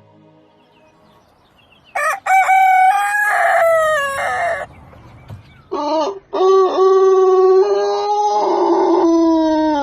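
Rooster crowing twice: a crow of about two and a half seconds, then a longer, lower crow that steps down in pitch toward its end.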